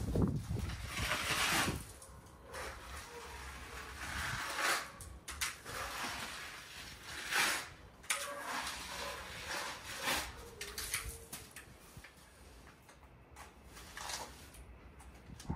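Plastering trowel scraping textured bark-beetle (короед) plaster across the fireplace in irregular swishing strokes.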